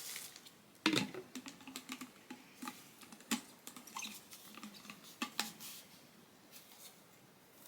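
Light, irregular clicks and taps of Cirkul drink bottles and their lids being handled and set down, the loudest knock about a second in.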